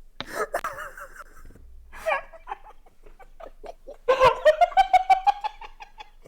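People laughing under their breath, with short giggles at first that break into a run of quick, rapid bursts of laughter about four seconds in.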